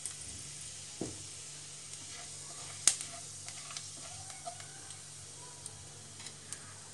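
Cumin seeds sizzling in hot ghee and oil in a nonstick kadhai, stirred with a silicone spatula. There is a knock about a second in, a sharper click near three seconds, and light ticks as the spatula moves through the pan.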